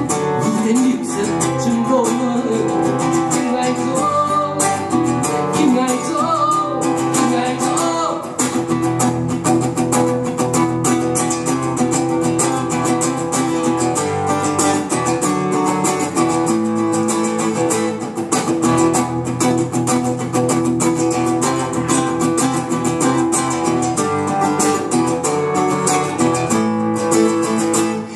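A Hakka folk song performed live: a guitar picked and strummed steadily, with a man singing over it, most plainly in the first several seconds.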